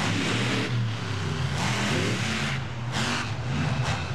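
Monster truck engines, supercharged big-block V8s, revving hard in freestyle, the pitch climbing and dropping as the throttle opens and closes, over a dense roar of exhaust.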